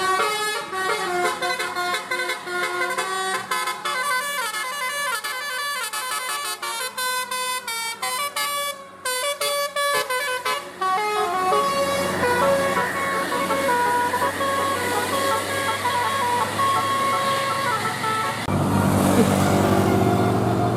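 Bus's telolet basuri horn, a multi-note musical air horn, playing a quick melody of changing notes. In the second half the notes are held over the bus's engine noise, which grows louder near the end as the bus comes close.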